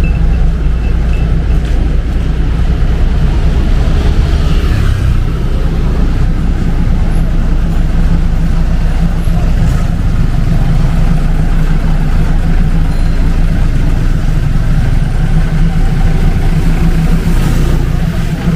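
Steady low rumble of motor vehicle engines in street traffic, with faint voices mixed in.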